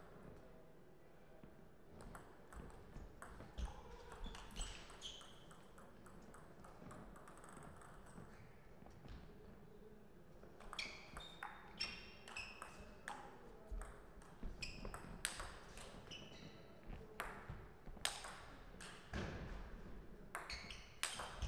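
Table tennis ball being played: sharp clicks of the ball off the bats and ringing pings as it bounces on the table. A few scattered hits come first, then a fast rally of them from about ten seconds in.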